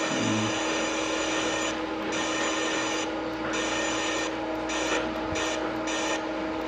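Lathe simulator's machining sound: a steady motor hum with a drill-like hissing cutting noise that switches on and off in stretches of about a second, as the simulated tool makes its pass along the workpiece.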